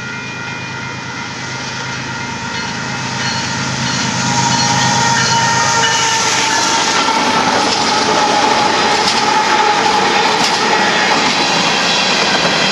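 Union Pacific freight train passing close by: diesel locomotives running for the first few seconds, then a long string of empty covered hopper cars rolls past with steady wheel clatter, louder from about four seconds in. A grade-crossing bell keeps ringing in repeating high tones.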